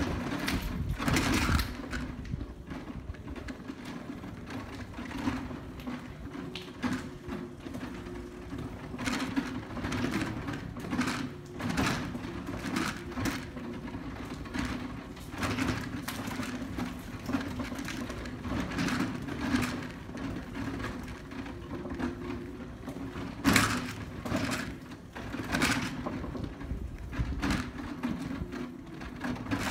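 Footsteps scuffing on a gritty concrete floor, roughly one a second, over a steady low hum.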